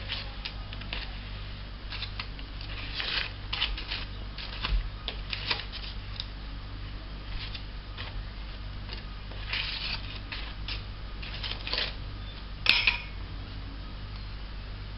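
Irregular light scrapes and clicks of kitchen utensils and dishes being handled during dessert preparation, with one sharper click near the end, over a steady low electrical hum.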